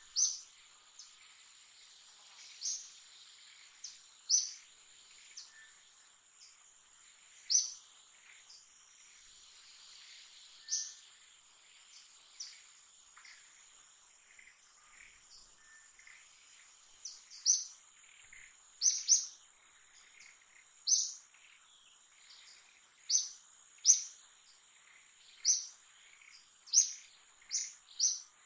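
A bird chirping over and over in short, sharp high notes, irregularly every second or two and more often in the second half, over a steady high-pitched insect drone.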